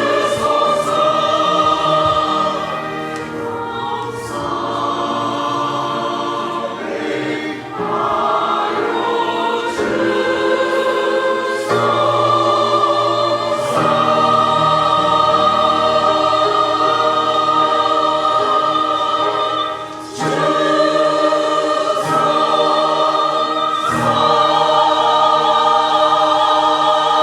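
Church choir singing a hymn in several voice parts, with sustained chords and a long held chord near the end.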